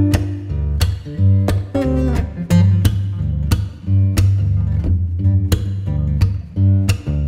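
Background music: a guitar-driven instrumental with strummed and plucked guitar over a steady bass line and regular sharp beats.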